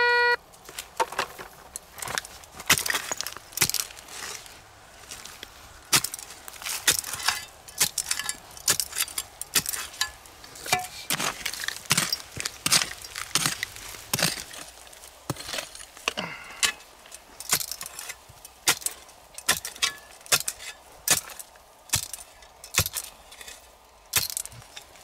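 Short-handled pick-hoe chopping into stony soil, a sharp chink and scrape of its metal head against pebbles and stones with each stroke, about one or two strokes a second.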